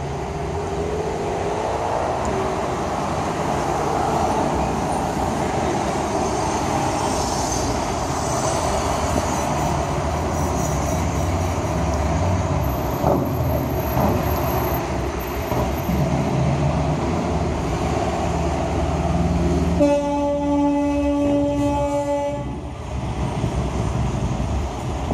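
Heavy street traffic running steadily, with one long horn blast about twenty seconds in that holds a single pitch for about two and a half seconds.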